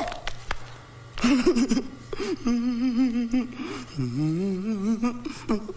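A man's voice making a long, wavering hum with no words, starting about a second in, its pitch dipping and then rising about four seconds in.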